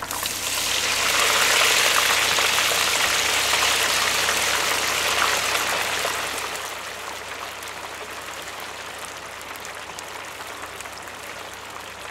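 Curry leaves, garlic and mustard seeds sizzling and crackling in hot sesame oil in a metal kadai as a tempering. The sizzle is loudest for the first six seconds or so, then settles to a quieter, steady fry.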